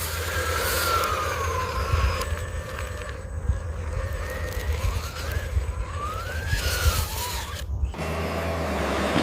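Small electric motors of RC model machines whining, the pitch sliding down, then rising and falling again, over a steady low hum. The sound changes abruptly about eight seconds in.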